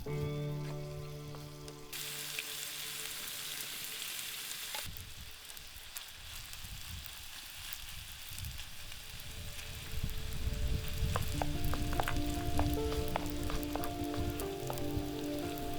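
Food sizzling as it fries in a hot pan, loudest for a few seconds about two seconds in, with scattered clicks as it is stirred. Instrumental music plays with it, louder in the last few seconds.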